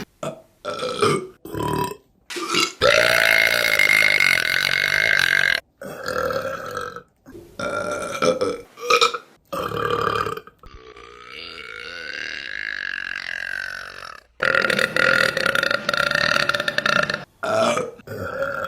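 A rapid string of women's burps, about a dozen of them, separated by abrupt cuts: short quick belches alternate with long drawn-out ones lasting around three seconds, one of which is quieter, rising and then falling in pitch.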